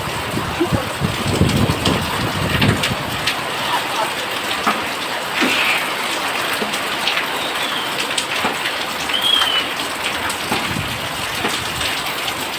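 Steady rain falling on surfaces: a continuous hiss with many small drop taps, with some low rumbling in the first few seconds.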